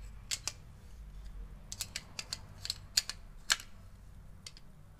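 Irregular metal clicks and taps of a 17 mm spanner on the float-bowl plug of a 30 mm PWK-type carburetor as it is tightened, the two sharpest about three seconds in and half a second later.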